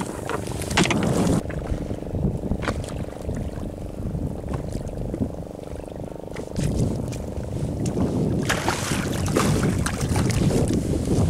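Small fishing boat's engine running steadily, with wind on the microphone and water sloshing and splashing along the hull, growing louder in the last few seconds. A few sharp knocks are heard on the boat.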